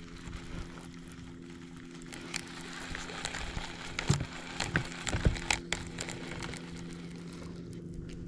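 Steady hum of a boat motor, with a scatter of sharp clicks and crackles that is thickest a few seconds in.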